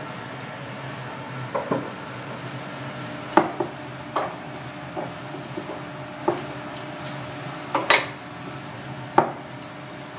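Chopsticks clicking and tapping against a porcelain bowl and a small plate: scattered light clicks at irregular intervals, two louder ones near the middle and toward the end, over a steady low hum.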